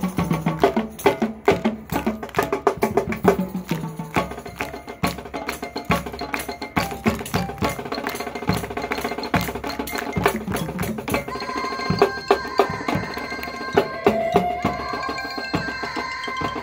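High school marching band playing on the field: a percussion-heavy passage of rapid, dense strikes, with held wind chords coming in about eleven seconds in over lighter percussion.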